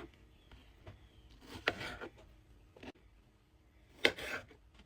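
A knife cutting fruit on a cutting board: two short sharp cuts about two and a half seconds apart, with faint clicks of handling between.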